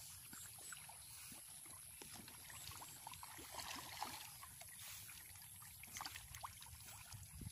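Faint pond water at the bank: scattered small splashes and light lapping at the surface, over a low steady rumble.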